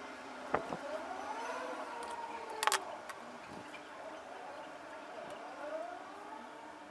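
A siren wailing, slowly rising and falling in pitch. Two sharp taps cut through it, one about half a second in and a louder one near three seconds.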